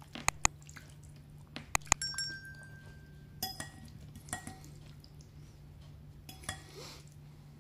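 Metal fork clinking against a ceramic bowl while twirling spaghetti in tomato sauce. There are four sharp clinks in the first two seconds, the last ringing briefly, then a few softer scrapes of fork and pasta in the bowl.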